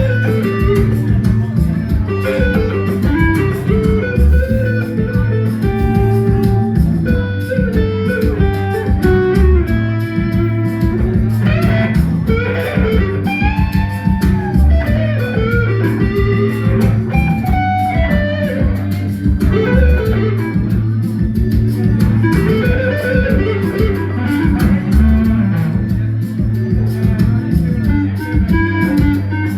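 Live band playing a bluesy number: guitar over bass guitar and a steady drum beat.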